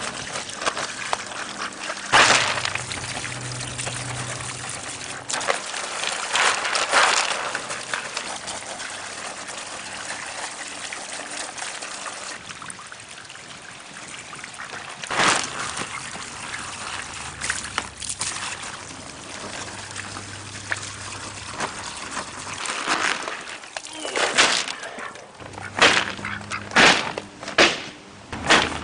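Water from a garden hose pouring into plastic bags of pond pebbles and trickling and splashing out of holes in their bottoms onto concrete pavers, rinsing the dirt out of the stones. Several short, louder bursts break in, the last few close together near the end.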